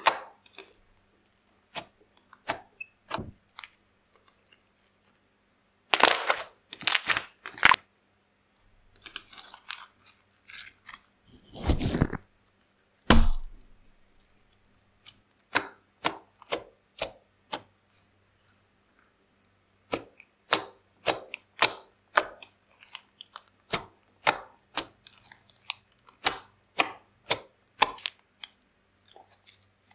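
Clear glittery slime being squeezed, poked and stretched by hand, giving sticky clicks, pops and crackles in irregular clusters with short pauses between them. A couple of heavier, deeper squishes come about twelve and thirteen seconds in.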